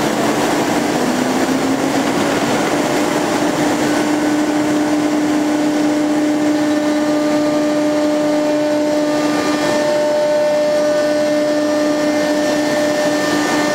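Automatic tool change CNC router's spindle running at a steady high speed, its bit routing a door-panel groove pattern into MDF: a steady whine over a dense rushing cutting noise.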